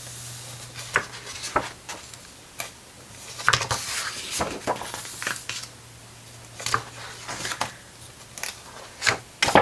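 Heavy pages of a large hardcover art book being turned and smoothed by hand: an irregular run of short paper rustles and flaps, the loudest one near the end.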